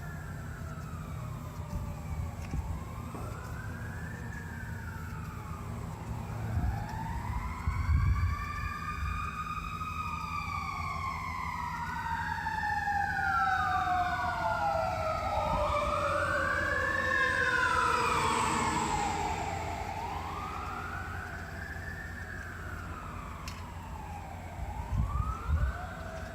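Two emergency-vehicle sirens wail at the same time, their pitches rising and falling in repeated sweeps over a low traffic rumble. They grow louder toward the middle and then fade away as the vehicles pass.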